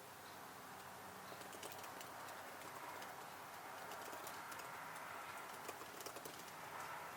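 Computer keyboard typing: irregular, quiet key clicks, a few at a time, over a faint steady background hiss.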